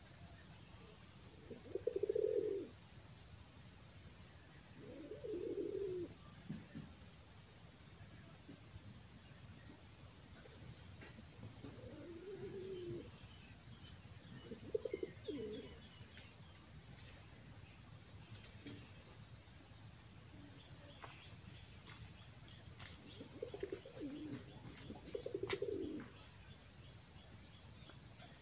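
A bird cooing in short low calls, one every few seconds, over a steady high-pitched insect drone.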